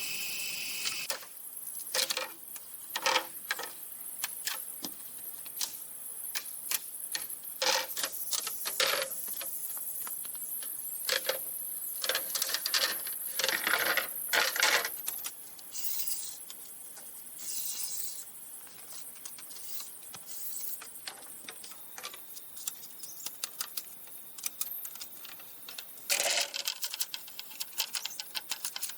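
Irregular knocks, taps and clicks of hand work on green bamboo, over a steady high hiss that fades out about halfway through.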